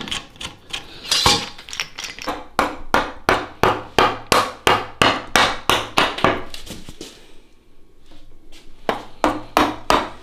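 Round wooden mallet striking a carving chisel into a wooden post, hard, rapid, evenly spaced blows about three a second. The blows pause for a second or two near the end, then start again.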